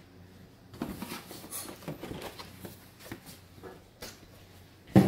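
A cardboard box and its stiff black plastic insert tray being handled and lifted out: soft scraping and rustling with a few light knocks, and a louder knock near the end.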